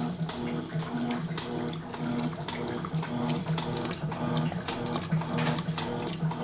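Electrolux LM06 washing machine agitating a load: a motor hum that pulses on and off in a steady rhythm, about twice a second, over water sloshing and splashing.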